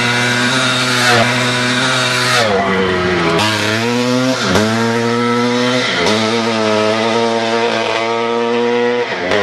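Dirt bike engine revving hard as it rides past on a gravel road, its pitch dropping and climbing back again several times.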